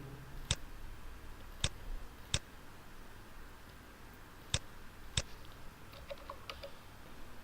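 Computer mouse clicking: five sharp, separate clicks at uneven intervals, then a few fainter ticks near the end.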